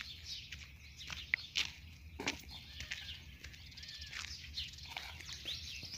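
Small birds chirping, with many short high calls and quick sweeps, over a low steady hum.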